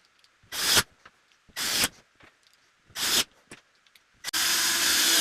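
Power drill with a countersink bit cutting into wood, run in three short bursts and then one longer run of about a second.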